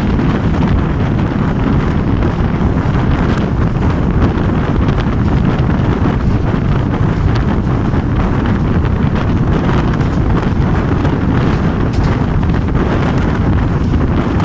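Heavy wind buffeting the microphone of a phone held out of a moving train's window, over the steady running noise of the train.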